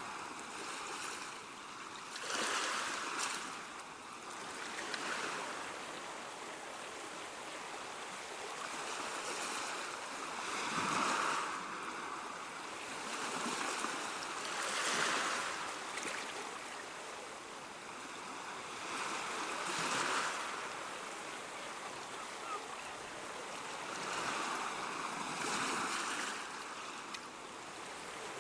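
Ocean waves breaking and washing on the shore, a steady rush that swells and fades as each wave comes in, every few seconds.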